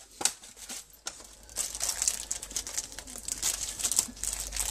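Small clear plastic parts bag crinkling steadily as hands open and handle it, starting about a second and a half in, after a few light clicks.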